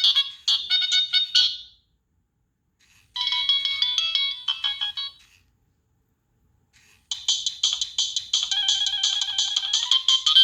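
Nokia 3588i playing its preloaded ringtones: three short, high-pitched electronic melodies separated by silent gaps of about a second and a half. The first stops about two seconds in, the second plays for about two seconds, and the third starts about seven seconds in and keeps going.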